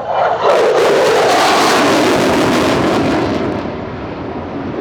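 Twin-engine F/A-18 Hornet fighter jet passing in a fast flyby: a loud jet roar that swells about half a second in and eases off after about three seconds.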